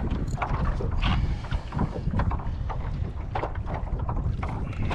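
Wind rumbling on the microphone over small waves slapping against a kayak's hull, with a few short splashes at irregular moments.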